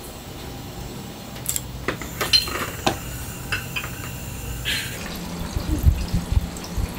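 Small ceramic bowls and utensils clinking and knocking as food is plated, in scattered sharp clinks, with a few dull low thumps near the end.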